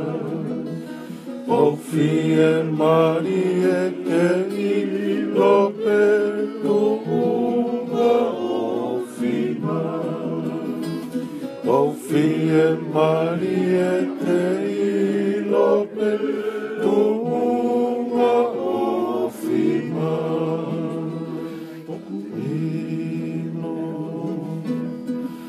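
A man singing while strumming an acoustic guitar, with a steady strummed rhythm under the melody.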